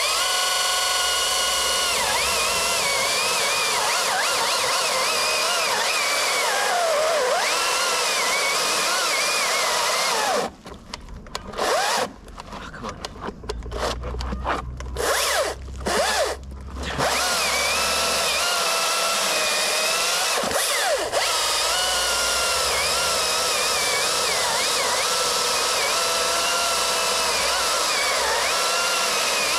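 Husqvarna T540i XP battery top-handle chainsaw cutting through dead big leaf maple, its electric motor running with a steady high whine that wavers under load. About ten seconds in, pushed down too hard, the motor stalls and cuts out in stutters for several seconds, then picks up again and cuts on steadily.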